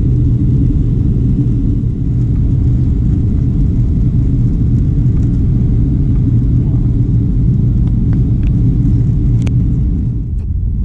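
Boeing 737-800 cabin noise: a steady, loud low rumble of engines and airflow, with a few faint clicks and a slight drop in level near the end.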